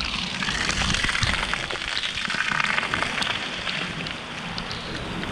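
Heavy rain falling and splashing on surfaces: a dense, steady hiss with many small drop ticks.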